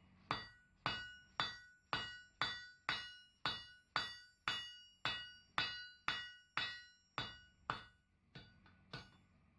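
Hand hammer striking red-hot steel on an anvil, about two blows a second, each blow ringing out in clear anvil tones that fade before the next. About fifteen full strikes, then a couple of lighter taps near the end.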